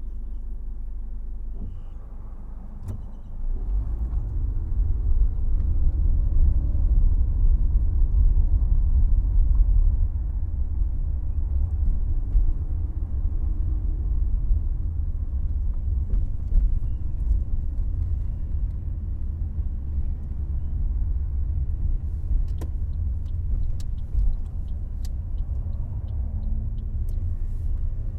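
Car driving: a steady low rumble of engine and road noise that grows louder about three and a half seconds in and holds, with a few faint clicks near the end.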